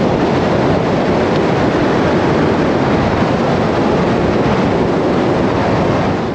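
Loud, steady rush of wind on the microphone and road noise from a truck driving at highway speed.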